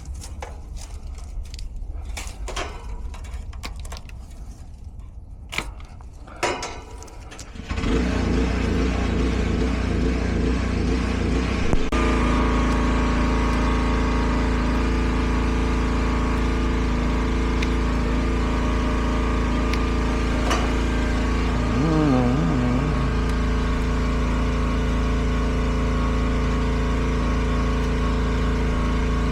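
Old R-22 air-conditioning system starting up about eight seconds in, after a short in its wiring was repaired. It comes on suddenly, steps up a few seconds later, then runs with a steady machine hum. Before it starts there are only a few light clicks and handling noises.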